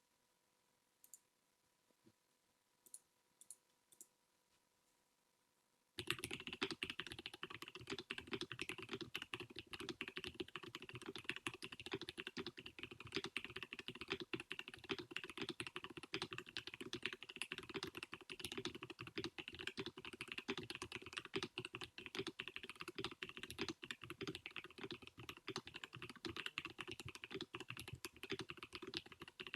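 Typing on a KBD67 Lite R3 mechanical keyboard with lubed Durock T1 tactile switches, a polycarbonate plate and doubleshot ABS keycaps. A few separate key presses in the first seconds, then fast, continuous typing from about six seconds in.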